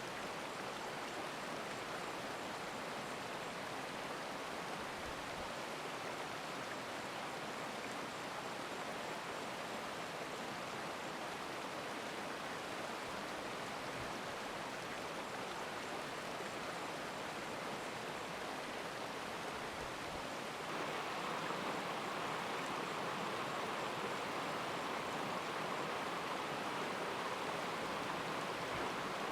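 Steady rushing of a flowing stream. About two-thirds of the way through it gets slightly louder, with a brighter rush.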